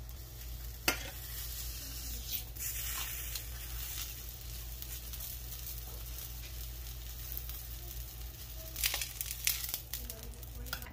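Folded flour tortilla frying in a little oil in a stainless steel skillet, a steady sizzle. A sharp click about a second in, and several metal clinks near the end as tongs lift it from the pan.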